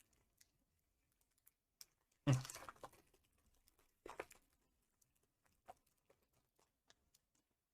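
Light clicks and taps of a metal mini tin and its card pack being handled and opened by hand, with a louder knock and clatter about two seconds in and a smaller one about four seconds in.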